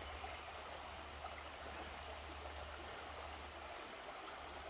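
Shallow river running over stones and through riffles: a steady rush of water.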